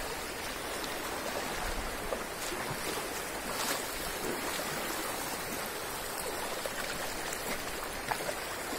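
Muddy river floodwater flowing across a field, a steady rush of moving water.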